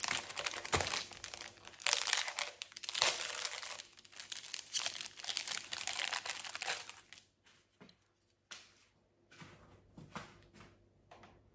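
Packaging crinkling and tearing as it is handled and unwrapped, a dense crackle for about seven seconds, then only a few scattered light rustles.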